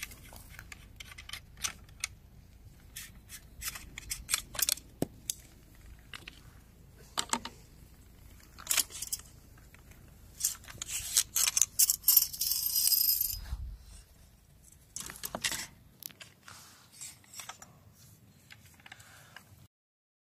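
Metal clicks, clinks and scrapes as a Hunt MX4 Tactical semi-automatic shotgun, a Benelli M4 clone, is stripped by hand. Its parts come off and are set down on a wooden table, with a longer scraping stretch of metal from about 11 to 13 seconds in.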